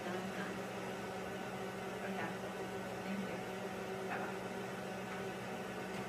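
Hair dryer blowing inside a home air duct, a steady rush of air with a constant low hum, run as sound-masking noise.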